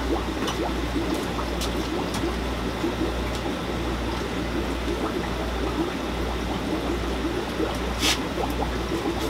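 Aquarium water trickling and bubbling steadily, as from air-driven sponge filters and tank outflows in a room full of fish tanks, over a steady low hum. A light tick about eight seconds in.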